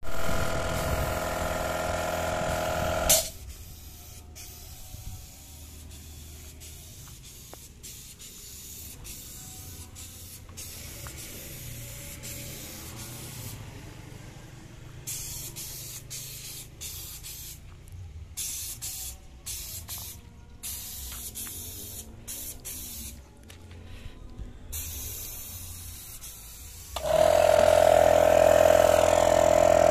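Compressed-air paint spray gun hissing in short on-off bursts as paint is sprayed onto a steel frame. A loud steady motor drone runs for the first few seconds, stops suddenly, and comes back near the end.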